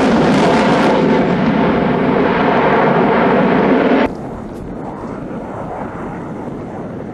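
Sukhoi Su-30 fighter's twin jet engines running loud in flight. The sound cuts off abruptly about four seconds in, leaving much fainter background noise.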